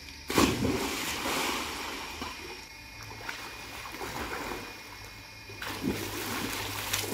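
A person jumping into a swimming pool: a loud splash about a third of a second in, then water churning as it dies away, and a second splash near the end.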